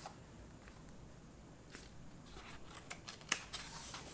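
Faint rustle and a few soft clicks of a picture book's paper page being handled and turned, the sharpest click about three seconds in.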